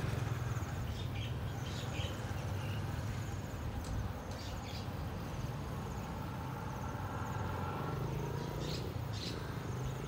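Birds chirping now and then and insects trilling in a high pulsing buzz, over a steady low rumble.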